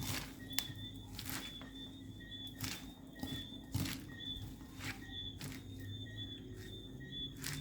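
Utensils clicking and knocking against a bowl as a salad is tossed and mixed, in irregular taps about once a second. A faint high-pitched tone comes and goes underneath.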